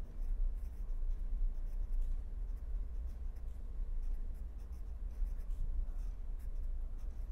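Pen scratching on paper while writing out words by hand, in many short strokes, over a steady low hum.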